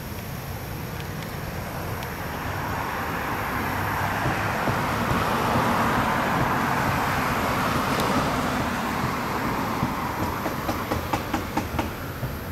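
A vehicle passing by: a rush of noise that swells, peaks about halfway through and fades away. A run of light clicks follows near the end.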